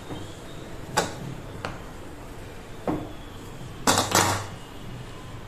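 Kitchen handling sounds: a few light, sharp taps while dough is pressed flat by hand on a marble board, then a louder double clatter about four seconds in as a wooden rolling pin is picked up over a steel tray.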